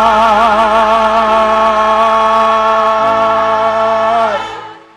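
Gospel choir singing and holding the last chord of a song, the voices wavering with vibrato at first and then held steady. It fades away about four and a half seconds in.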